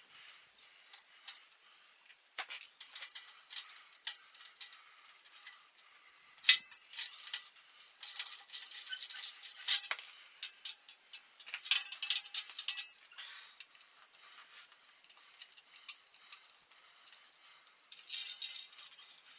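Small metal parts and tools clinking and rattling while bicycle hardware is worked on: scattered sharp clicks, one louder clink about six seconds in, and short jangling clusters around eight to ten seconds, around twelve seconds and near the end.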